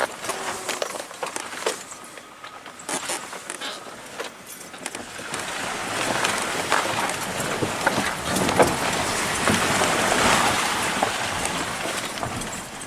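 A car driving over a rough, bumpy road, with tyre and road noise and scattered knocks and rattles. The noise swells in the middle and eases off near the end.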